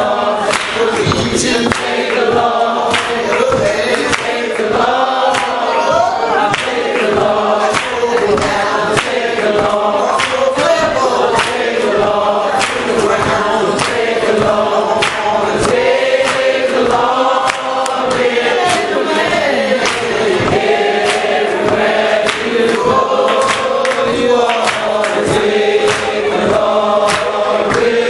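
A congregation of men's and women's voices singing a hymn together, unaccompanied, in the a cappella style of Primitive Baptist worship.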